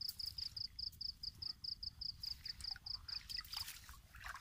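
An insect chirping in a rapid, even pulse of about five chirps a second, stopping about three and a half seconds in. Light rustling and splashing of a mesh fish trap being shaken out in shallow water.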